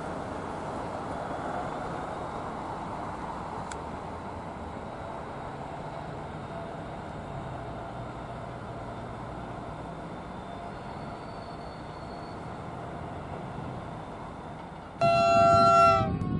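Double-deck passenger train running away along the track, a steady rumble of wheels and diesel traction that slowly fades. About fifteen seconds in, a diesel locomotive's horn sounds loudly for about a second.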